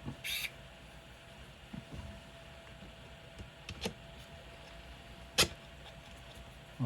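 A few sparse, sharp clicks and taps of small hard parts and tools being handled while a shock is fitted to an RC crawler chassis, the sharpest about five and a half seconds in, over a faint steady hum.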